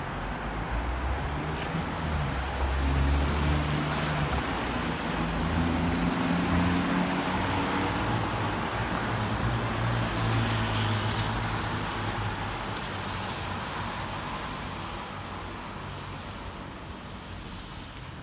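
A motor vehicle's engine running close by, its low hum swelling and then fading away over several seconds, over the hiss of wet road and rain.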